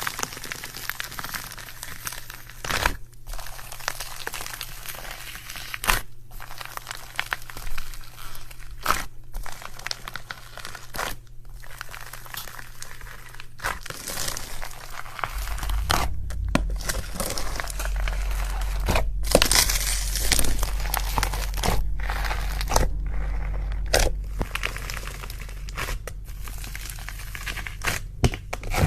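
Slime being handled and squished, giving crinkly, crackling sounds, in a run of short clips that cut off every few seconds. A low hum runs underneath from about halfway.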